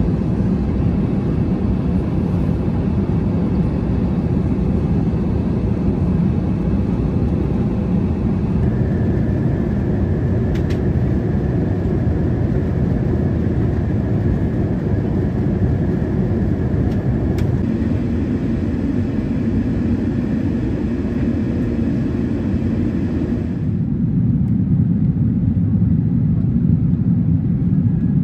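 Steady low rumble of airflow and engine noise inside an Airbus A380's passenger cabin on descent. Its tone shifts slightly twice, and a couple of faint clicks sound in the middle stretch.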